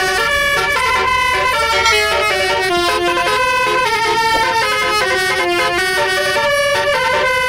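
Basuri telolet bus horn, a multi-trumpet air horn, playing a tune: a continuous run of held horn notes that step up and down in pitch, about two to three notes a second.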